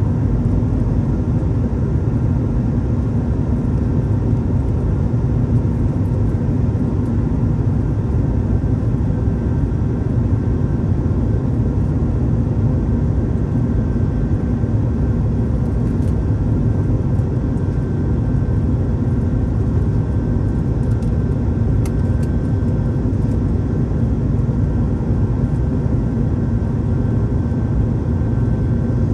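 Steady cabin drone inside a Boeing 737 MAX 9 on its descent: the CFM LEAP-1B engines and airflow make an even low rumble, with a faint steady whine on top.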